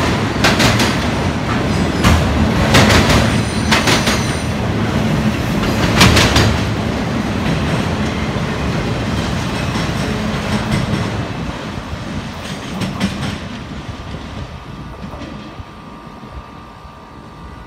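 Freight train of autorack cars rolling past, its wheels clacking over the rail joints with a heavy rumble. The sound fades steadily over the second half as the last cars move away.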